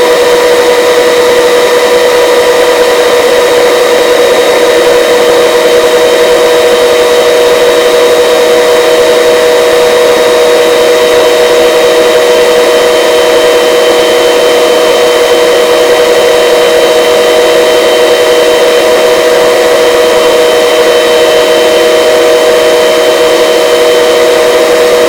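Search-and-rescue helicopter in a hover: a loud, steady turbine and gearbox whine of several held tones over a rushing rotor noise. A slightly higher tone joins about ten seconds in.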